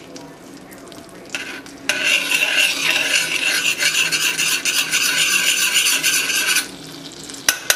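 Metal spoon stirring and scraping around a stainless steel saucepan of melted butter, a scratchy rasping that starts a second or two in and stops abruptly about two-thirds through. Two sharp taps near the end.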